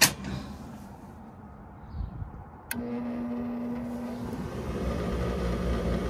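A sharp click, then a quiet stretch with no igniter buzz. About two and a half seconds in, a relay clicks and the package unit's draft inducer motor starts, running with a steady hum as the furnace cycles without spark: the board's ignition transformer is dead.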